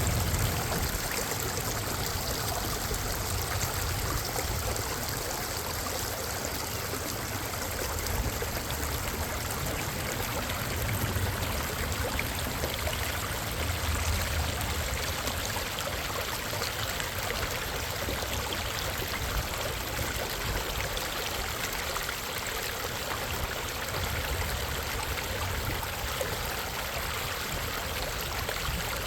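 Water of Minnehaha Creek rushing and splashing steadily, with an uneven low rumble underneath.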